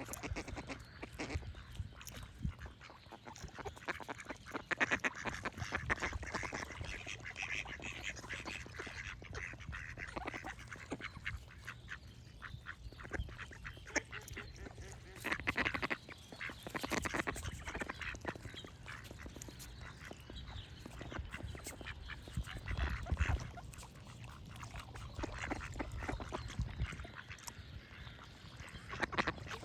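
Ducks quacking repeatedly and irregularly, with other birds faintly singing behind them.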